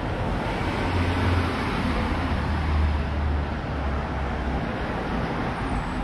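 Street traffic noise: a motor vehicle's engine rumbles close by for a few seconds over a steady city background hum.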